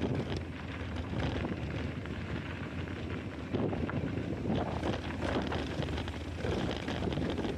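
Mountain bike rolling over a dry dirt and rock trail: tyres rumbling on the ground and the bike rattling unevenly, with wind buffeting the action-camera microphone.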